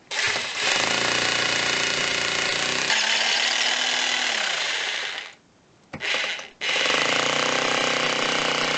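Rotary hammer drilling into an old brick chimney, running in long bursts: it stops about five seconds in, gives a short burst, then starts again and keeps going.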